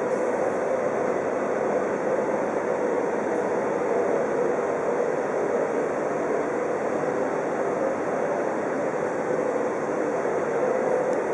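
Steady rushing noise, even and unbroken, with no knocks, speech or changes.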